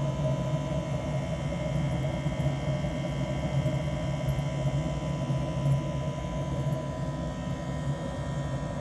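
Petrol-fired heater burning after being lit, giving a steady, even hum and rush. It is warming the GAZ-66's engine oil, which is diluted with petrol.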